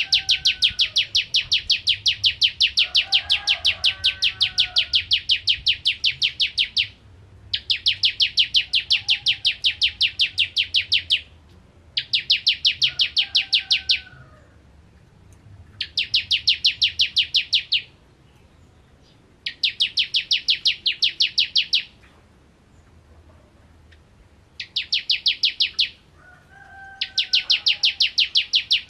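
Caged ciblek kristal (prinia) singing its rapid-fire 'nembak' song: long bursts of fast, evenly repeated shrill notes, several seconds each, broken by short pauses, the first and longest running about seven seconds. Faint lower whistled notes from another bird sound underneath.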